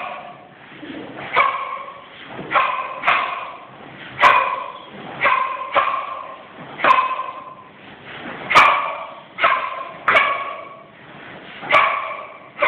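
About a dozen sharp snaps at irregular intervals of roughly a second, each followed by a short, pitched vocal-like call, in time with a child's karate kata moves.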